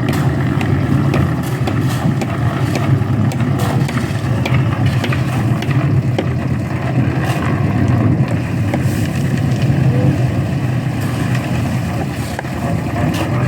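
Engine of a concrete mixer running steadily under load, with scattered clicks and knocks on top.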